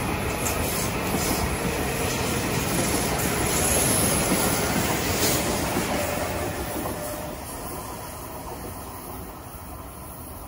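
Metro-North M8 electric commuter train passing close by, its wheels rumbling and clattering on the rails. The sound fades away once the last car has gone by, about six seconds in.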